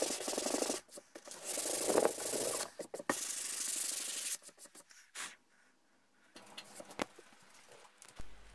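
Sandpaper rubbed by hand over a hardwood cutting board: three long sanding passes that stop about four and a half seconds in, followed by a few faint knocks.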